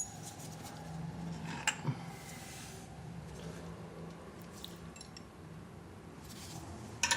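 Wrench clinking on a brake caliper bolt: a few scattered light metallic clicks over a faint low hum, as the tool fails to grip a bolt head that is suspected to be rounded off.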